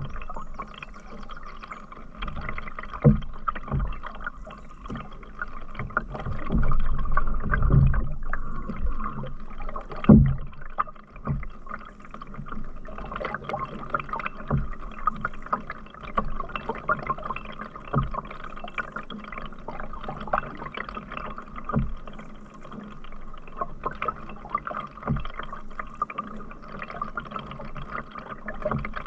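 Canoe being paddled: water splashing and dripping from the paddle, with low thumps every few seconds.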